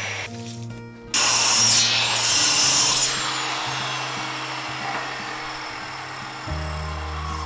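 Sliding compound miter saw cutting through a wooden board: a loud burst of saw noise starts suddenly about a second in, is loudest for about two seconds, then slowly dies away.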